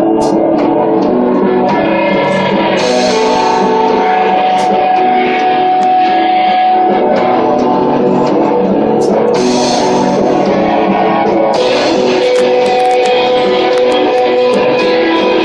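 Live post-rock band playing loud instrumental rock: electric guitars ringing out held chords and notes over a drum kit. Brighter cymbal washes come in about three seconds in, again around nine seconds, and just before the end.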